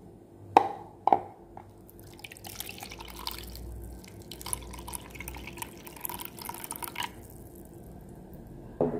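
Two sharp knocks about half a second apart, then water poured from a plastic measuring jug splashing into a small container for about five seconds, with another knock near the end.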